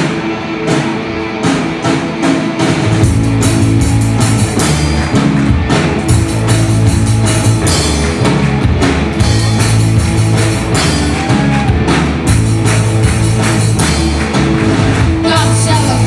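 Live rock band playing loud through a PA, with electric guitars and a drum kit; the bass and full band come in about three seconds in.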